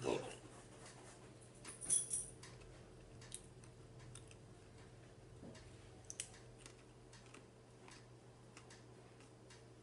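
Close-miked eating sounds: scattered crisp crunches and small wet clicks of chewing. The loudest come just at the start and about two seconds in.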